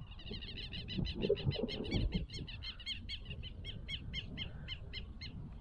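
A bird calling in a fast run of short, repeated high notes, about six a second, fading near the end. A few dull low thumps come about a second in.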